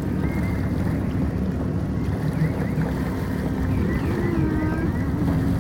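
Jet ski running under way: a steady engine drone mixed with the rush of water and wind.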